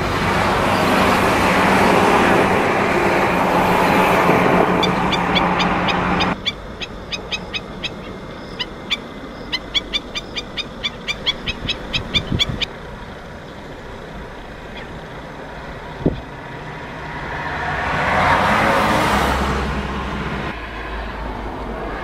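Outdoor ambience: a loud steady rush with a low hum that stops abruptly, then a fast run of short high ticks or chirps for about six seconds, then a broad rush that swells and fades.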